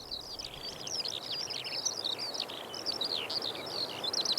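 Skylark singing: a continuous, rapid stream of high warbles, trills and chirps without a break, over a faint steady hiss.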